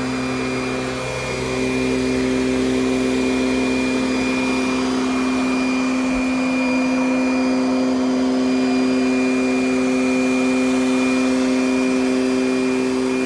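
Kirby Sentria 2 upright vacuum cleaner running on carpet, its motor giving a steady humming tone. The level dips briefly about a second in, then holds steady.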